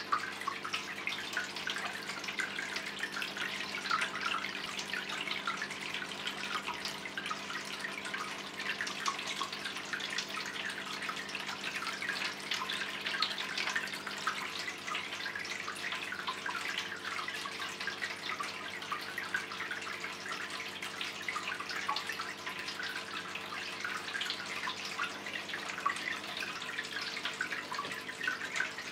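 Tiered tabletop fountain running: water trickling and splashing in many small streams from tier to tier into the basin, with a faint steady hum underneath.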